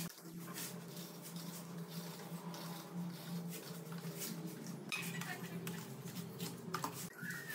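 Small steel trowel scraping and smoothing wet cement mortar on a concrete countertop, a run of short repeated scrapes, over a steady low hum.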